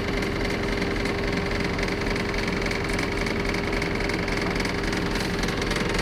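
1978 Bedford TK lorry's engine idling steadily.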